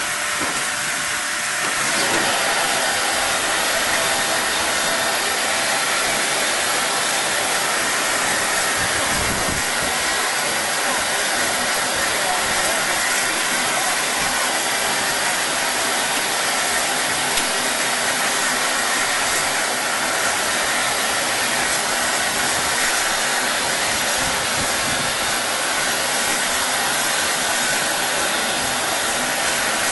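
Steam hissing steadily from the standing British Railways Standard Class 8 three-cylinder Pacific No. 71000 'Duke of Gloucester', growing louder about two seconds in, with no exhaust beats.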